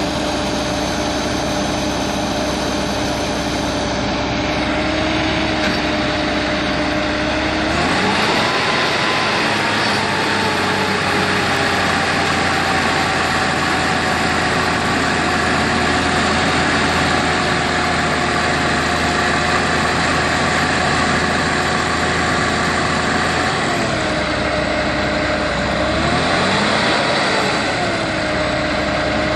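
Diesel engine of earth-moving machinery running under load. It revs up about eight seconds in, holds there, drops back near the end, then revs up and eases off once more.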